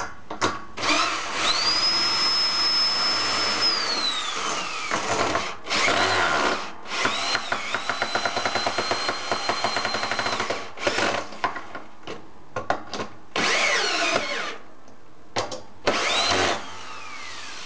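Porter-Cable cordless drill driving long bolts through a wooden futon arm into the metal stretcher rail. Several runs of the motor: it whines up to speed, holds, and winds down, with short bursts between and a fast, even rattle in the middle run.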